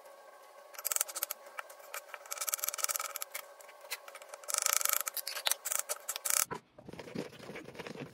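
Knife slicing through a smoked sausage on a wooden cutting board: a run of quick cuts with sharp knocks of the blade on the board, over a faint steady hum. About six seconds in it changes to a plastic spatula stirring beans, sausage and chopped vegetables in a pressure cooker pot.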